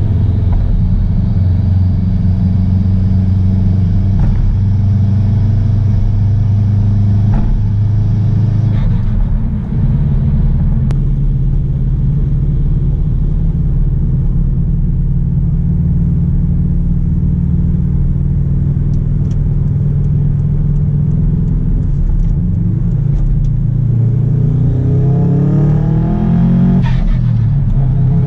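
Subaru EJ207 turbocharged 2.0-litre flat-four running through a free-flowing 3-inch turbo-back exhaust, holding a steady rumble for most of the time. Near the end it revs up: the pitch climbs, breaks off briefly and climbs again, as through a gear change under acceleration.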